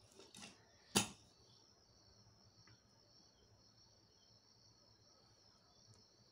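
Drawing tools handled on paper: a few faint scrapes, then one sharp plastic tap about a second in as the pen and ruler are moved. Over it runs a steady high-pitched trill of crickets.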